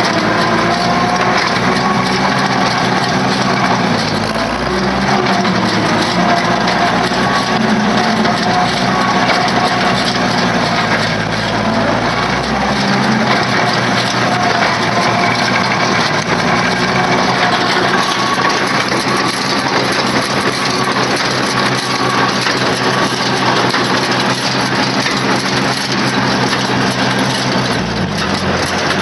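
Tractor engine running steadily under load while pulling a 24T small square baler, with the baler's mechanism crunching and clicking as it packs hay. The engine note shifts a little a few seconds in and again about halfway through.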